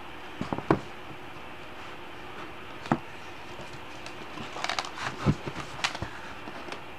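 Paper pop-up book pages being handled and turned, with the folded paper pop-ups closing and opening. Sharp paper snaps and rustles come about half a second in, once near three seconds, and in a cluster between about four and a half and six seconds, over a steady hiss.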